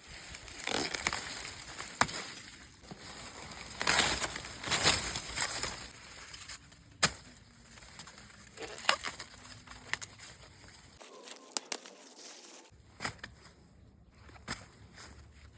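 Rustling and crackling of corn leaves and husks, with a scatter of sharp snaps, as ears of corn are picked by hand. The longer rustles come in the first few seconds, and the sharp snaps follow through the rest.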